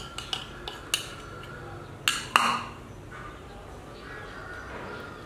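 Metal spoon clicking and tapping against a small plastic condiment dish and plate while seasoning is scraped out: a few light clinks, then two louder knocks about two seconds in.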